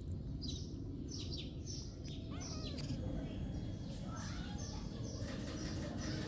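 Small birds chirping repeatedly in short, high, downward chirps over a steady low background noise.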